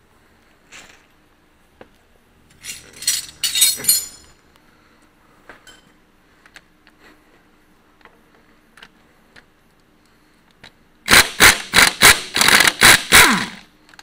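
Hand tools clinking and scraping on metal while working bolts on a tractor. There is a short cluster of clinks about three seconds in, a few light clicks after it, and near the end a quick run of about eight loud metallic strokes over two and a half seconds.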